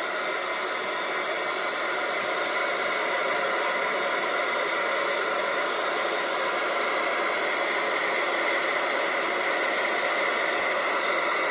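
Alba CB H2 handheld 40-channel FM CB radio hissing steadily with static through its speaker, the squelch open on channel 19 and no station coming through.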